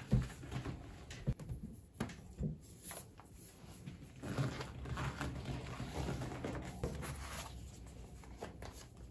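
Things being packed into a fabric tote bag: a tablet and a laptop slid in by hand. There are a few knocks in the first couple of seconds, then a longer stretch of rustling and scraping against the bag's fabric.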